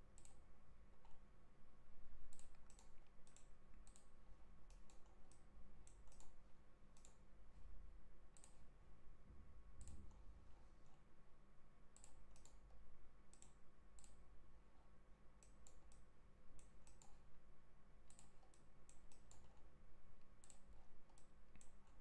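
Computer mouse clicking: scattered, irregular single clicks as points are picked on screen, over a faint steady electrical hum.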